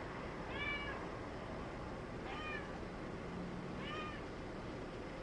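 Domestic cat meowing three times, about a second and a half apart, each meow a short call that rises and falls in pitch.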